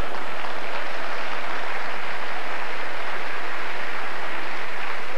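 Live audience applauding steadily after a joke.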